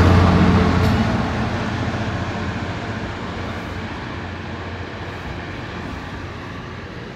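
Freightliner Class 66 diesel locomotive's two-stroke V12 engine running loud, fading over the first couple of seconds as it pulls away. It gives way to the steady rumble of hopper wagons rolling past on the rails.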